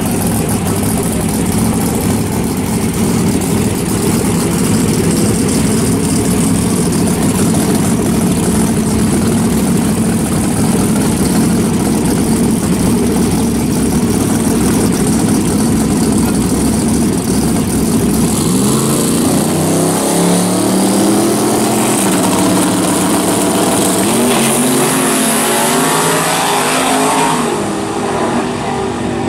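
Drag racing cars' engines running loud and steady at the starting line, then launching about two-thirds of the way through: the revs climb, drop back and climb again through several gear changes as the cars pull away down the strip.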